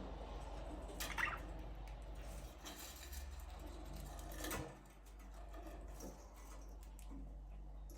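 Budgerigars in an aviary, faint: a short wavering chirp about a second in, then scattered small clicks and rustles.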